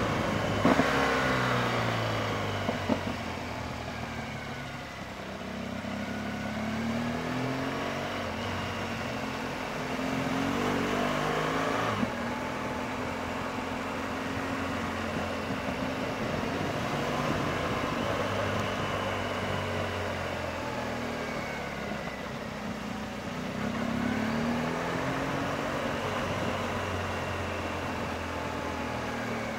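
BMW R1200GS Adventure motorcycle's boxer-twin engine running on a mountain road, its revs rising and falling with throttle and gear changes. A few sharp clicks are heard near the start and about twelve seconds in.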